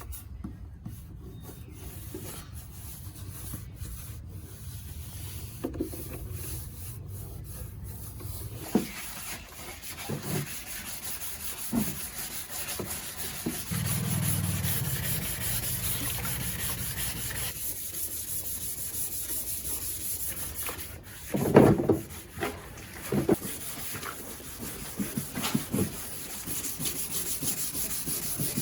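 Workshop hand work: rubbing and scraping on a surface, with scattered knocks and one loud knock a little past two-thirds of the way through.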